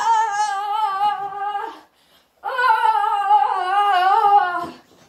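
A person's long, high-pitched vocal wail, held as two drawn-out notes of about two seconds each, the second wavering and sliding down at its end.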